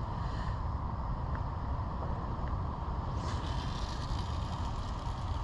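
Steady low outdoor rumble with a light hiss over it, as a breeze blows across the riverbank, and a brief rise in hiss a little past the middle.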